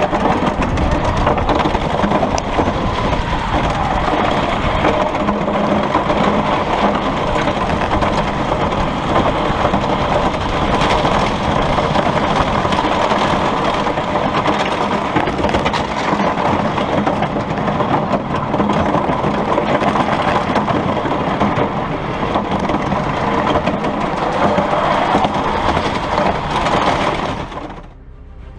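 Roller coaster train running along its track, a steady, loud mechanical noise with faint rising and falling whines, fading out near the end.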